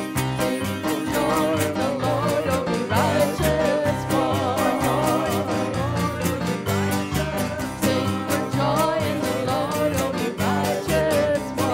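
Upbeat Messianic worship song: a singer's voice over instruments with a steady beat.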